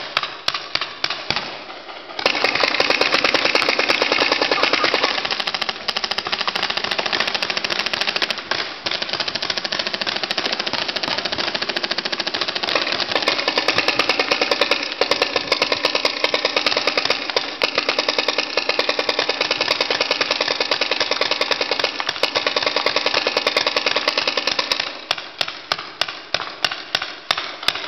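Paintball markers firing in rapid strings of shots, many a second. Distinct shots at first, then a long dense stretch of fast, overlapping fire from about two seconds in, thinning back to separate shots near the end.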